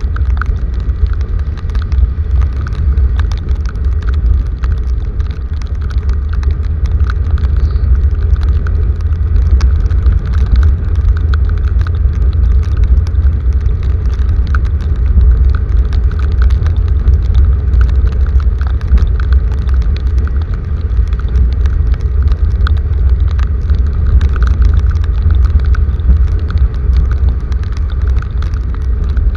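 Rain falling, with many small drop ticks, over a loud, steady low rumble.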